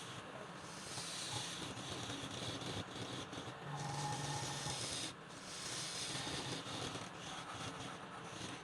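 Steady scraping and rubbing of a tool against wood spinning on a woodturning lathe.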